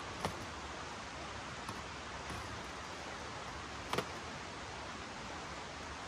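A steady hiss throughout, with sharp clicks of a hose's metal fittings being handled: one just after the start and a quick double click at about four seconds.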